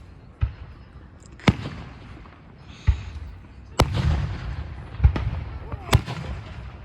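Aerial fireworks shells bursting overhead: about six sharp booms, roughly a second apart, with a rumble between them.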